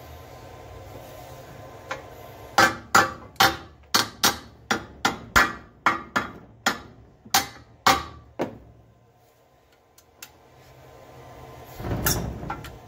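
Small hammer tapping metal about sixteen times in quick succession, two to three blows a second, each with a short ring, seating an aluminium extrusion clamped on a milling machine table. Near the end comes a short rubbing scrape.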